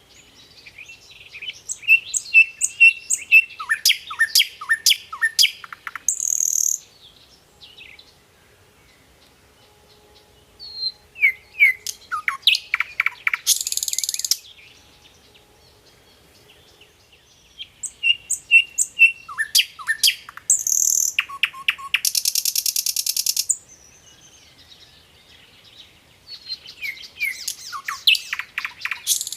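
A bird singing in four bouts, a few seconds apart. Each bout is a run of chirps and quick falling whistles that ends in a harsh, rasping buzz.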